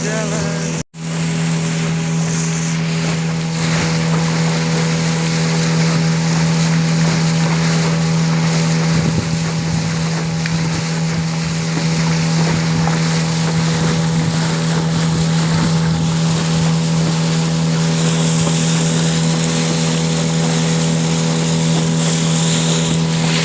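Small boat's outboard motor running at a steady speed: an even hum, with hiss from water and wind over it. The sound cuts out for an instant about a second in.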